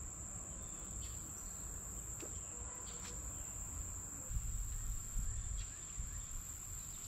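Steady high-pitched insect trill in summer woodland. From about four seconds in, low wind rumble buffets the microphone.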